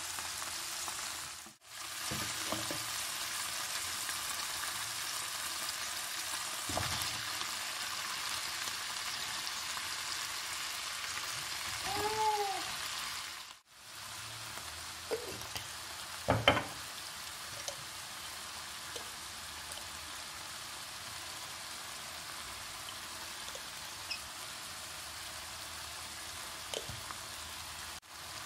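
Chicken pieces frying in oil in a nonstick pan, a steady sizzle. Partway through the sizzle breaks off for a moment and goes on a little quieter with sliced mushrooms in the pan, with a few sharp clicks of the utensil against the pan.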